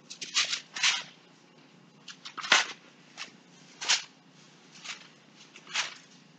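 Thin Bible pages rustling as they are turned to look up a verse: several short paper swishes at irregular intervals, over a low steady hum.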